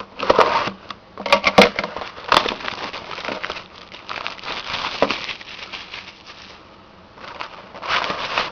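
Plastic wrapping crinkling and tearing as a sealed hockey card box is opened, in irregular crackly bursts with sharp snaps.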